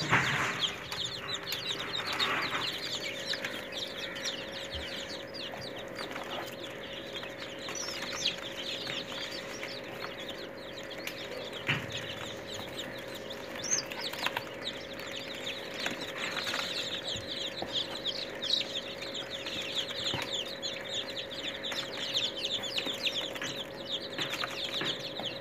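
A brood of about fifty young chicken chicks peeping without pause, many short high falling chirps overlapping into a chorus. A bump sounds right at the start as a hand reaches in among them, and a faint steady hum runs underneath.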